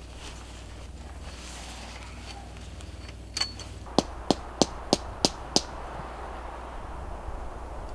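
Hammer driving a tent stake into the ground: a lighter tap with a short metallic ring, then six sharp strikes at about three a second, a little past halfway through.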